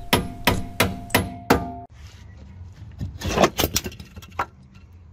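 Hammer blows on metal, about three a second, with a ringing note between strikes. They break off suddenly about two seconds in, and a shorter run of knocks follows about three and a half seconds in.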